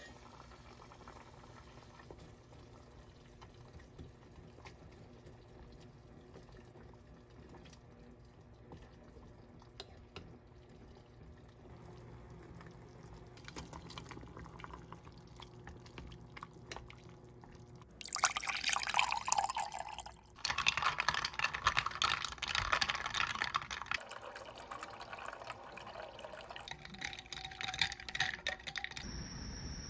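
Faint steady room hum, then from about eighteen seconds in water running and splashing, stopping briefly once and running again.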